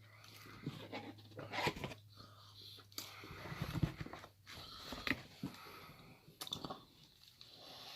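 A person chewing and biting McDonald's food, with irregular soft crunches and clicks.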